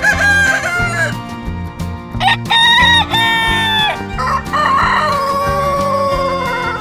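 Rooster crowing three times, the last crow long and slightly falling in pitch.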